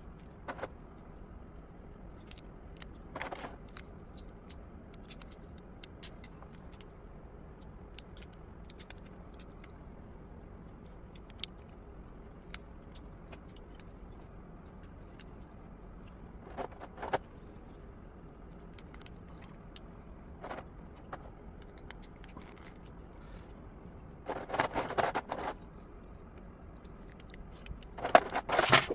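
Plastic model-kit parts of a Yolopark Megatron figure being handled and clicked together during assembly: scattered small clicks, with two short, louder bursts of handling noise near the end.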